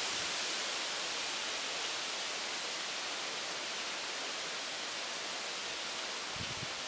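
A steady, even outdoor hiss with no distinct events, with a few soft low bumps near the end.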